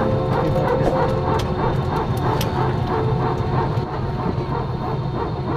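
An unsteady, rapidly pulsing sound from the engine area of an Airbus A320-200, heard inside the cabin over a steady low hum. The airline later put it down to ground support equipment, the GTC compressed-air supply and the GPU, rather than to a fault in the aircraft.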